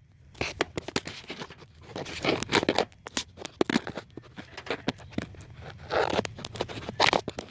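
Irregular scraping, rustling and clicking handling noises from hands and a hand-held camera moving among hoses and parts in an engine bay.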